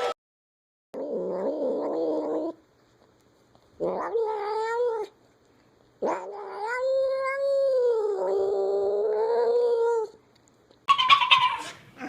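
Domestic cat caterwauling: three drawn-out yowls separated by short silences, the last one long and wavering, about four seconds. Near the end a different rapid, stuttering sound begins.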